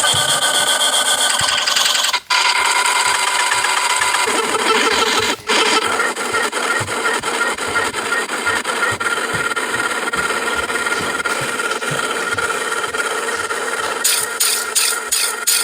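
Harsh, dense edited sound effects, cut off abruptly for an instant twice, about two and five seconds in, with a fast pulsing beat entering near the end.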